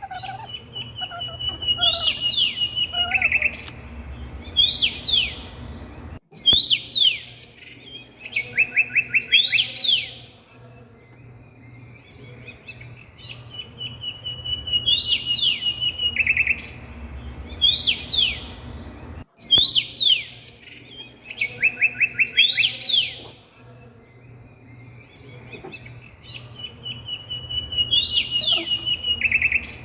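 Recorded songbird singing in repeated phrases: a steady high trill, then quick downward-sliding whistled notes, over a steady low hum. The same sequence comes round again about every 13 seconds, with short abrupt breaks where the recording loops.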